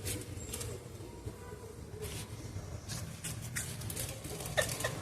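A small dog chewing a crunchy corn snack: scattered, irregular crisp crunches.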